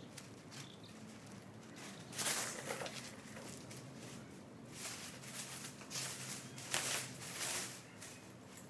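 Black plastic sheet of a small homemade kite rustling in short bursts as it is handled, loudest about two seconds in and again around seven seconds.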